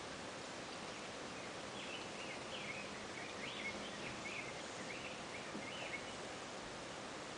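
Steady outdoor background noise with a run of faint, short high chirps, several a second, from about two to six seconds in.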